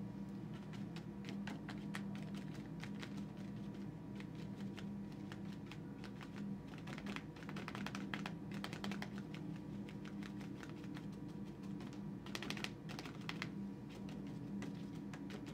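Paintbrush dabbing and stroking on watercolour paper: a run of short, soft taps that come thickest in two spells in the second half, over a steady low room hum.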